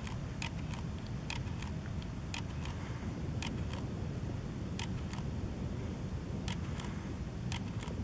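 Digital SLR camera shutter firing single frames at irregular intervals, roughly one a second, each shot a sharp double click, over a steady low rumble.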